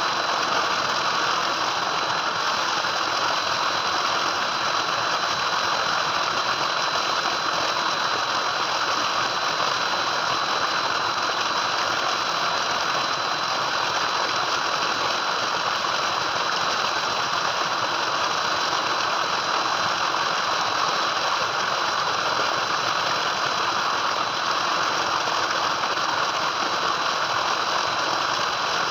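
Tubewell water gushing from a large pipe into a concrete tank, a steady rushing noise that holds even throughout.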